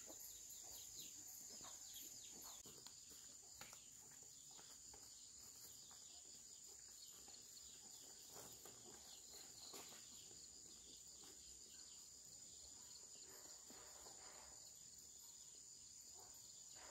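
Faint, steady high-pitched drone of insects, with scattered faint chirps and ticks over it.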